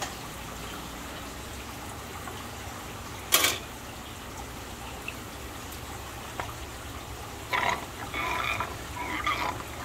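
Water splashing briefly about three seconds in and again near the end, followed by choppy, bubbling gurgles of water, over a steady low hum.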